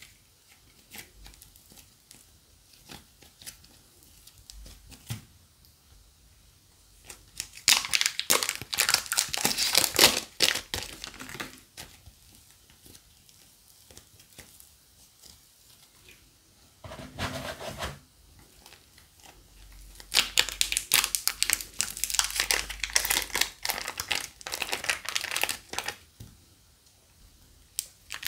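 Crunchy slime squeezed and pressed by hand, crackling and crinkling. There are two long stretches of dense crackling, about a quarter of the way in and again in the last third, with a short burst between them and sparse quiet crackles in the gaps.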